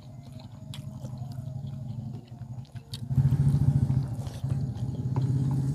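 An engine running with a low, steady drone that grows louder about three seconds in, over scattered light clicks.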